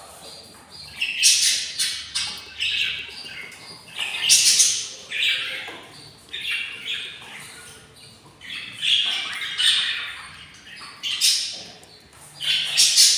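Budgerigar chicks giving harsh, raspy squawks in repeated bursts about every second or two: the begging calls of hungry nestlings.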